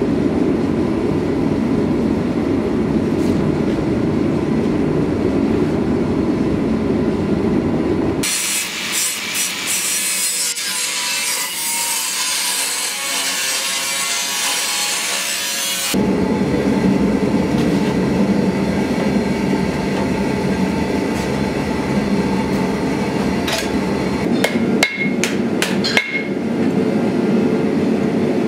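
Angle grinder with a cut-off disc slicing thin sheet metal: a high-pitched hiss lasting about eight seconds in the middle, between stretches of a steady low rumble. A few sharp hammer strikes on an anvil come near the end.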